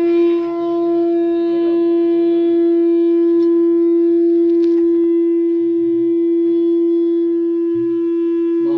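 A conch shell (shankh) blown in one long, loud, steady note.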